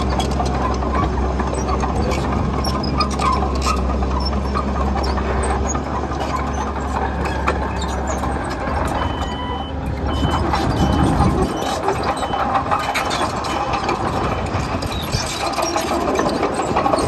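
Diesel engine of a tracked earthmover working as it levels soil, with squeaks and clanks from the machine. Just past the middle, a run of short high beeps sounds about twice a second for several seconds, and the deep low part of the engine drone falls away.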